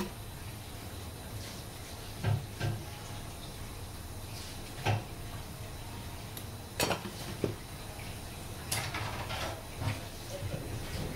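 Kitchen clatter: a few scattered light knocks and clinks of utensils, about six over several seconds, against a steady low hum.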